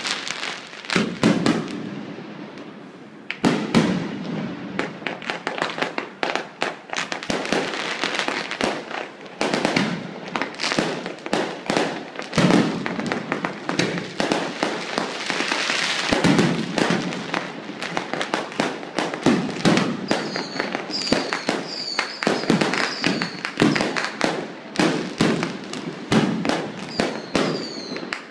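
Fireworks display going off in a dense, continuous barrage of bangs and crackling. In the last several seconds, short high-pitched squeaks repeat about twice a second over the bangs.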